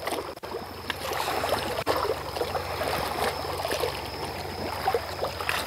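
Sea water washing and trickling against shoreline rocks, with scattered faint clicks and a steady low hum underneath.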